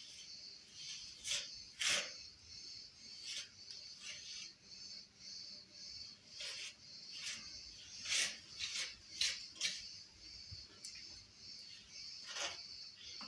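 A steady high chirring, like insects, with irregular sharp clicks or scrapes over it, the loudest about two seconds in and around eight and nine seconds in.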